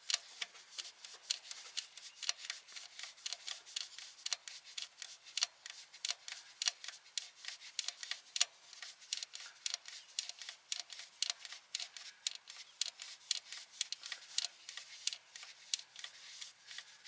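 Quick, irregular run of small light clicks and ticks, several a second, as of small parts and tools being handled.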